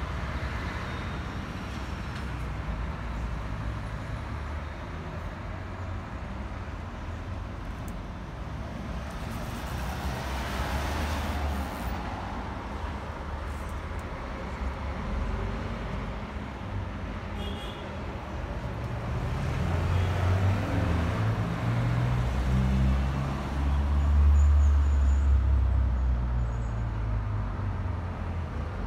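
Road traffic: vehicles passing, each swelling and fading over a steady low rumble, louder in the second half.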